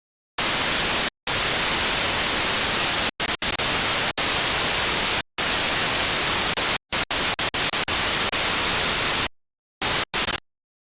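Static hiss, like a dead radio or TV channel, cutting in and out abruptly in irregular bursts, some several seconds long, others only fractions of a second, with dead silence between them.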